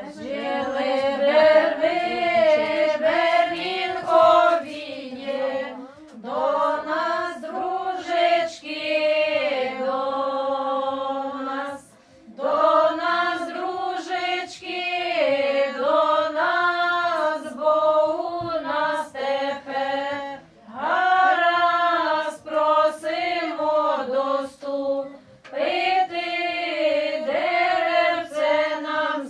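Group of women singing a traditional Ukrainian wedding ritual song unaccompanied, in phrases of several seconds with short breaks for breath between them.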